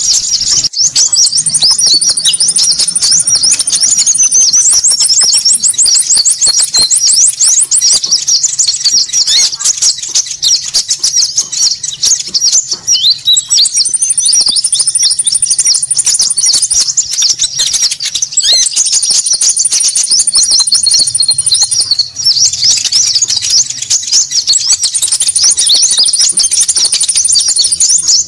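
Lure recording of konin birds calling: dense, rapid, high-pitched chattering with no break. A long, even, very high trill rings out over it about five times.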